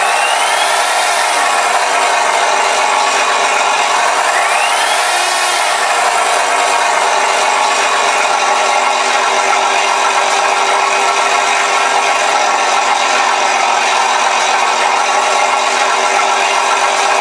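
Simulated Rolls-Royce Merlin V-12 aircraft engine sound from a ShockWave sound module, played through the model P-51 Mustang's onboard 4-inch speakers. The engine is running steadily, with two brief rising-and-falling sweeps: one right at the start and one about four to six seconds in.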